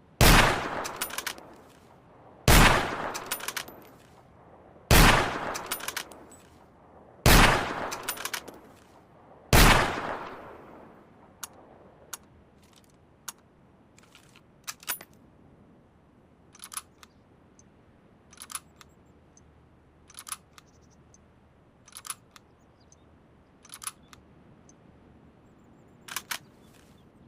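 Mosin-Nagant M91/30 bolt-action rifle in 7.62×54mmR firing five shots about two and a half seconds apart, each ringing out with smaller metallic clicks in its tail. Then a string of about ten quieter, sharp metallic clicks roughly every two seconds.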